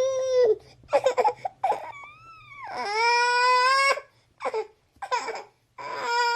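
High, baby-like voice crying and cooing: several drawn-out whiny cries of about a second each, one in the middle gliding up and then down, with short choppy babbling sounds between them.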